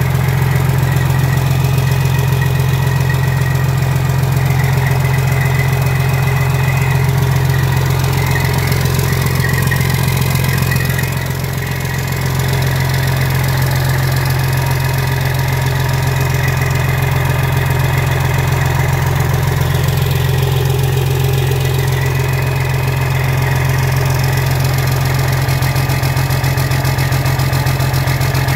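Detroit Diesel Series 60 12.7-litre inline-six turbodiesel idling steadily on a bare engine, briefly a little softer about eleven seconds in.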